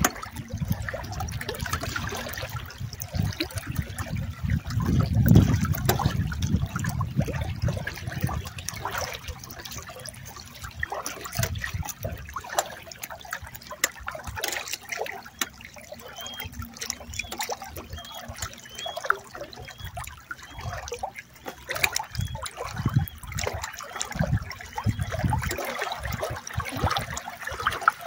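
Water splashing and lapping against a canoe hull in choppy water, irregular and continuous, with a low wind rumble on the microphone that is strongest in the first several seconds.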